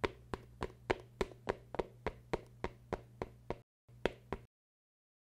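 Sharp, evenly spaced taps, about three a second, over a faint low hum; they stop about three and a half seconds in, two more follow, then the sound cuts to silence.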